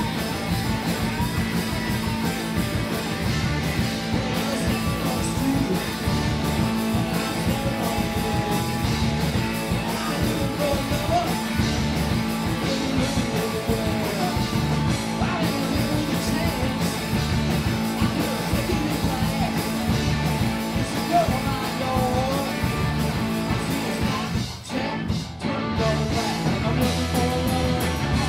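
Live rock band playing, led by electric guitar, with singing over it. The band drops out briefly near the end, then comes back in.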